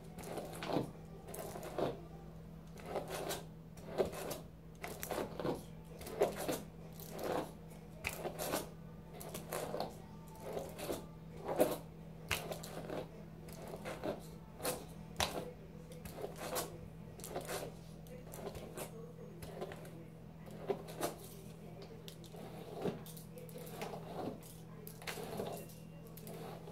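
Paddle hairbrush pulled through long hair, one swish per stroke, repeated about once or twice a second, over a steady low hum.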